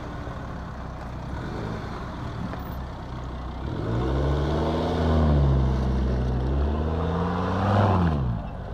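A motor vehicle's engine idling, then about four seconds in revving up, easing back and revving up again before the revs drop near the end.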